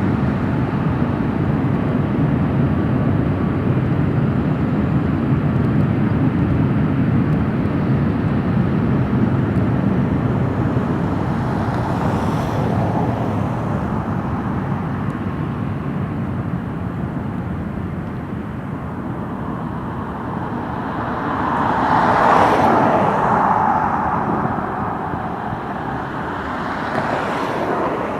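Jet airliner engines rumbling loud and steady, slowly easing off. Road vehicles swish past about 12, 22 and 27 seconds in, the one near 22 seconds loudest.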